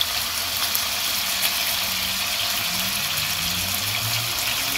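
Freshly cut potato sticks and kebabs frying in hot oil in pans, a steady sizzle, with a low hum coming in about two seconds in.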